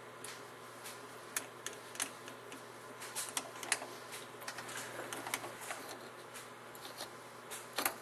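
Scattered light clicks and taps of a screwdriver working a small screw into the handle bracket on a Moen faucet's cartridge stem, metal and plastic parts knocking, with a louder click near the end, over a faint steady hum.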